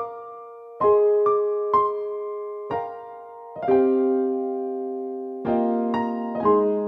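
Background music: slow electric piano playing sustained chords, each struck note ringing and fading.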